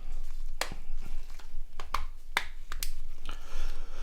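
Plastic housing parts of a Nokia 5610 XpressMusic slider phone being pressed and clicked together by hand, giving a series of sharp, separate clicks.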